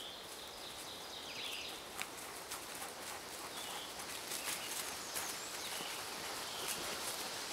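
Footsteps of two hikers and a dog crunching and rustling through dry leaf litter, getting a little louder as they come closer. Several short, faint bird chirps sound above them.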